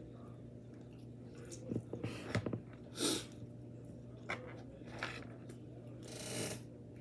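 Close-up eating sounds: chewing, with several short wet smacks and crunchy bites spaced irregularly.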